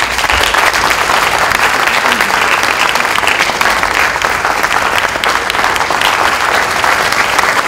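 Sustained applause from a theatre audience and the cast on stage: many hands clapping in a dense, steady patter.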